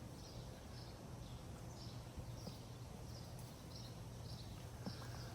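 Faint outdoor ambience: a small bird gives short high chirps over and over, about one to two a second, over a faint steady low hum.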